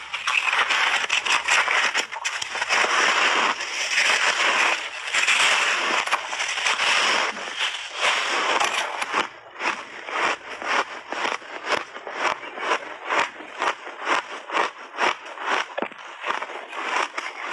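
Refrozen pink shaved ice being bitten and chewed: a dense continuous crunching for about the first half, then separate chewing crunches, several a second.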